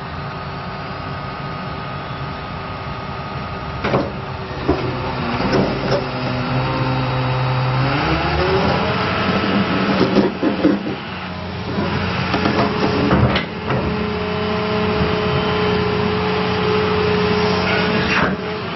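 2009 John Deere 270D LC excavator's diesel engine running just after start-up, its speed rising about eight seconds in. Hydraulic clunks and knocks come now and then as the boom and arm are worked.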